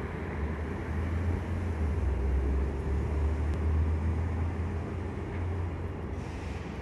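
Steady low rumble of street traffic, with a deep engine hum and no distinct passing vehicle.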